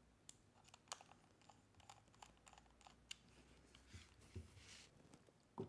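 Faint, irregular small clicks and taps of steel grip screws and a screwdriver as the screws are started and driven into the grip screw bushings through laser grip panels on a 1911 pistol, with a slightly louder knock near the end.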